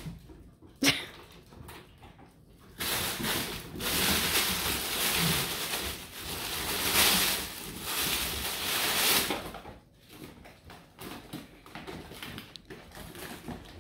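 Nylon pet play tunnel rustling and crinkling in long bouts as a puppy and a cat scramble in and against it. Near the end this gives way to scattered light taps of paws and claws on a hardwood floor.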